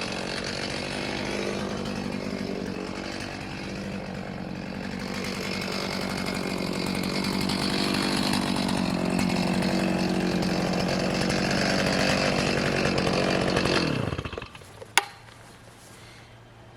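Chainsaw running and cutting branch stubs off a log, its pitch rising and falling with the load, then shut off about fourteen seconds in, the pitch falling as it stops. A single sharp click follows a second later.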